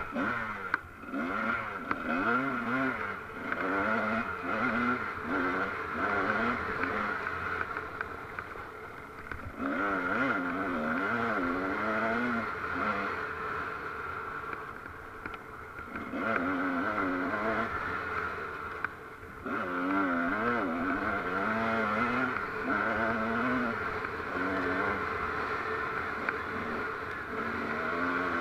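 Off-road vehicle engine running hard on a dirt trail, its pitch wavering quickly up and down as the revs rise and fall. It eases off briefly a few times, then picks up again.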